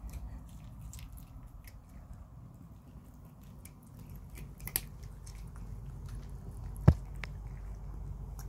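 A cat chewing and crunching dry food, a run of small irregular crunchy clicks, with one sharper click about seven seconds in.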